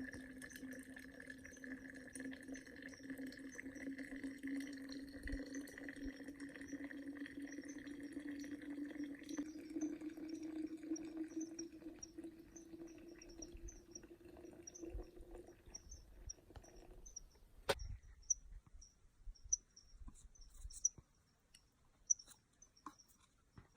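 A steady hum that slowly rises in pitch and stops about three-quarters of the way through, under quick high chirping that repeats throughout. A few sharp clicks come near the end.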